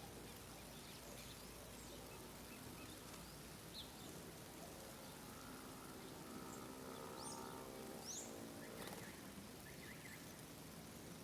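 Faint birds chirping: a few short, high, sweeping calls scattered across a quiet outdoor background. A faint low hum with several steady pitches runs for a few seconds in the middle.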